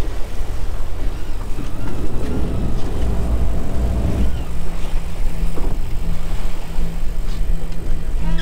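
Wind buffeting the microphone over the low rumble of a boat's outboard motors and waves splashing at the stern in choppy seas. A steady low hum joins about halfway through.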